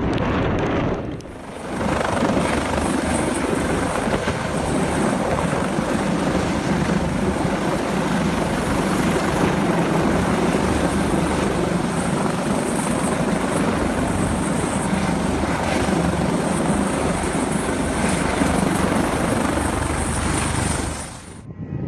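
Loud, steady aircraft noise that dips briefly about a second in, then runs unbroken and cuts off abruptly just before the end.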